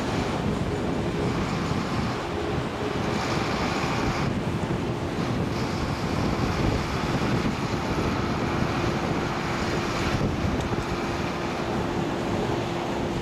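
Wind on the microphone over the steady running of a Beiben mining dump truck's Weichai diesel engine as the truck drives across the yard.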